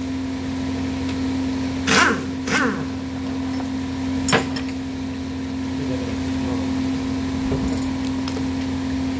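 Pneumatic impact wrench fired in two short bursts, about half a second apart, on a bolt of an engine being stripped down, followed a couple of seconds later by a single sharp metallic clink. A steady shop hum runs underneath.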